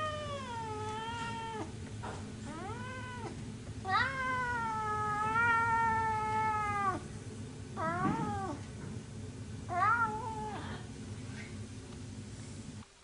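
Orange tabby cat meowing in a string of five long, drawn-out calls, the middle one held for about three seconds. They are attention-seeking calls aimed at a dog.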